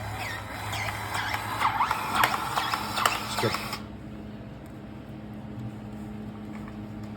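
Cordless DeWalt power grease gun running, its motor and pump whirring with rapid clicks as it pumps grease into a grease nipple on a skid steer's lift-arm pivot. It stops abruptly a little under four seconds in.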